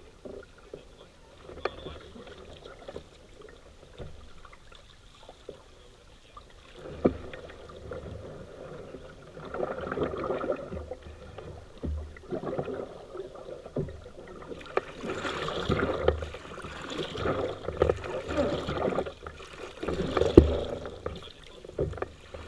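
Water splashing and sloshing in irregular bursts, busier in the second half, with a few sharp knocks.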